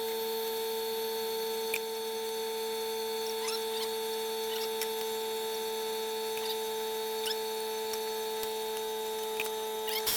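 Air compressor running steadily to refill its low tank, an even hum with a few faint ticks scattered through it.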